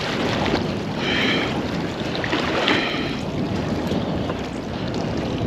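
Wind buffeting the microphone over the steady rush of water along the hull of a boat under way at sea.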